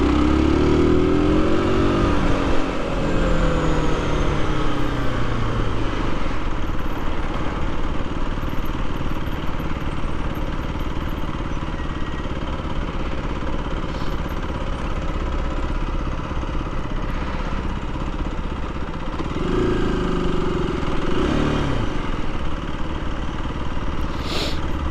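Aprilia RS 125's single-cylinder four-stroke engine pulling away, its pitch rising and then falling through the first few seconds, then running steadily and revving up and back down again about 20 seconds in, over steady wind and road noise. A short click comes near the end.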